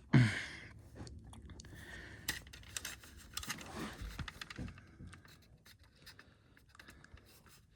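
Handling noise from a plastic Ei smoke alarm turned over in the hands: scattered light clicks and scrapes that thin out in the second half.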